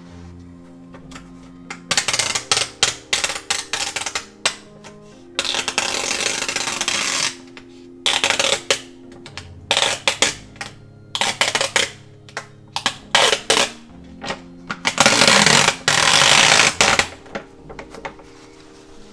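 Paper towels crinkling and rustling as they are peeled and pulled off a monitor panel, in irregular bursts of quick crackles with a few longer stretches of rustle.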